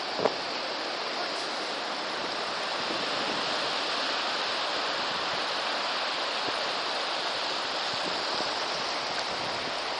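Shallow surf washing in over flat wet sand, a steady hiss of water, with one brief sharp sound just after the start.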